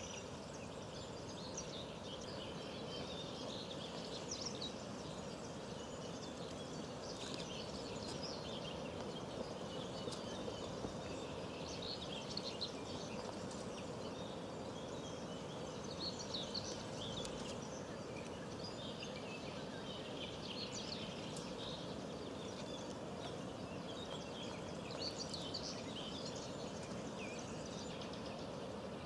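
Small birds chirping and twittering again and again over a steady background hiss, with no single call standing out.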